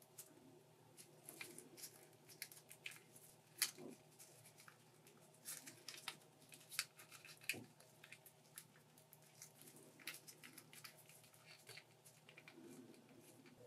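Faint clicks and rustles of a plastic figma action figure being handled and posed by gloved hands, with a couple of sharper clicks of its joints or parts about three and a half and seven and a half seconds in.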